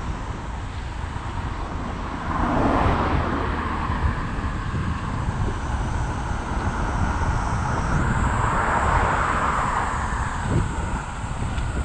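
Wind rushing over the microphone of a moving bicycle, with the tyre noise of cars passing on the road swelling twice, about two and a half seconds in and again around nine seconds.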